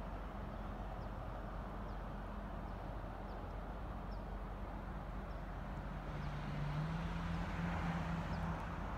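Steady open-air background noise, with a low engine hum that comes in about six seconds in and swells slightly before fading near the end. Faint short high chirps, likely from a small bird, repeat about once a second.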